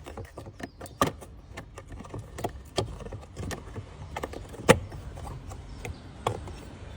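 Scattered plastic clicks and knocks, the loudest a little past halfway, as the cabin air filter cover of a Chery Arrizo 8 is pressed and snapped back into place.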